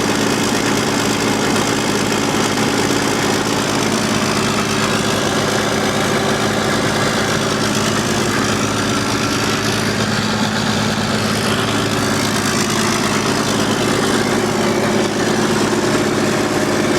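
Chevy 350 small-block V8 in a truck idling steadily, an even low running note that holds unchanged.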